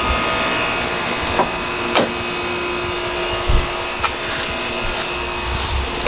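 Steady mechanical hum of a house's outdoor air-conditioning condenser unit running, with a few sharp clicks and a low thump of handling as the car door is worked and someone climbs into the seat.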